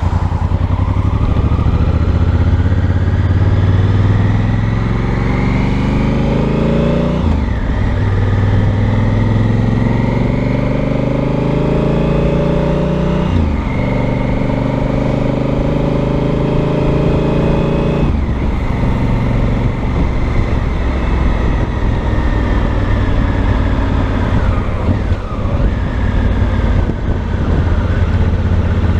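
A 2018 Honda Africa Twin Adventure Sports' parallel-twin engine and exhaust under way. It pulls up through the revs, shifts up about seven and thirteen seconds in, holds a steady pitch, then drops to a lower steady run as the throttle is eased off about eighteen seconds in.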